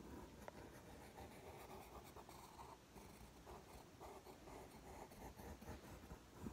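Faint scratching of a pencil drawing on a sheet of paper, short irregular strokes.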